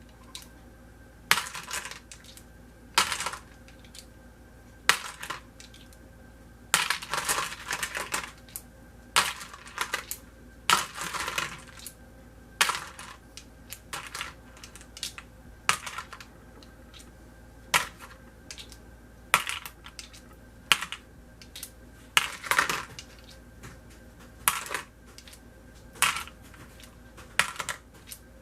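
Freshly loaded brass cartridges being dropped into a case gauge and tipped back out, one after another: sharp metallic clinks of brass on steel every second or two, with a few quick clusters of rattling clinks.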